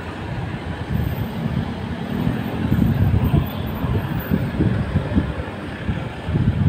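Road traffic passing by: a steady low rumble of car engines and tyres that swells and fades as vehicles go by.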